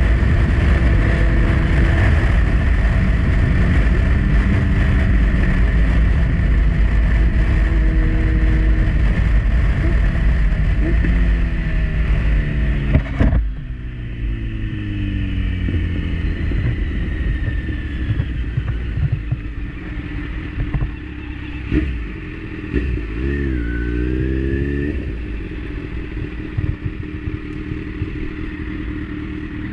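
Kawasaki motorcycle at freeway speed, its engine running under heavy wind noise. About 13 seconds in the wind noise drops off sharply and the engine note falls as the bike slows. Around 23 seconds in the engine rises and falls again briefly as it pulls away.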